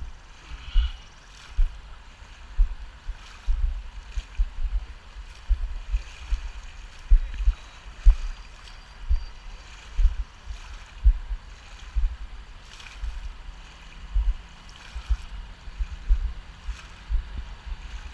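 Floodwater sloshing around something moving through it, with regular low thumps about twice a second.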